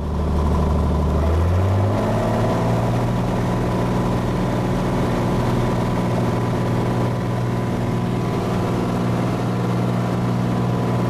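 Single-engine light aircraft's piston engine and propeller coming up to full power for the takeoff roll: the engine note rises over the first two seconds, then runs steady and loud at full throttle.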